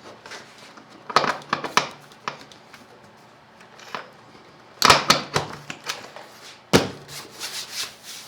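Motorcycle seat being handled and set back onto the bike: several short bursts of knocks and rattles as it is positioned, the loudest about five seconds in and again near seven seconds.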